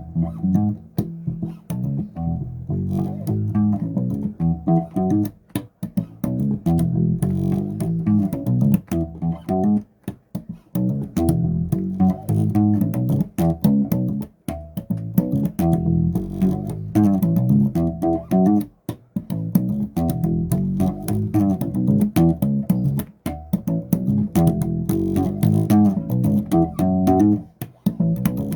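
Bass guitar played solo, a steady stream of plucked notes with a few brief pauses between phrases.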